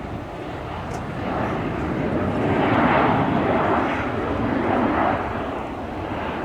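Airliner passing close by, its engine noise building to a peak about three seconds in, then easing and swelling again near the end.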